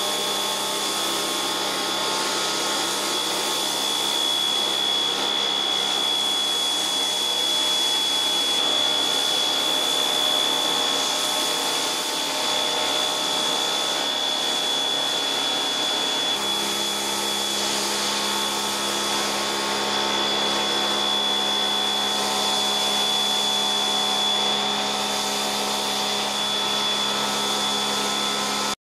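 Pressure washer running with a steady high-pitched whine over the hiss of spray, first rinsing with water and then pushing snow foam through a foam cannon. The sound stops abruptly just before the end.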